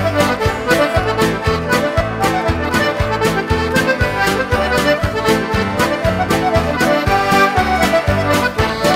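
Instrumental traditional Newfoundland/Irish-style tune led by accordion, over a steady, even beat.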